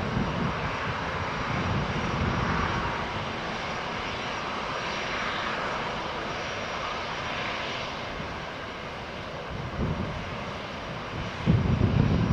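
Aircraft engines at an airport, a steady rushing noise that swells and then eases off. A louder low rumble comes in sharply near the end.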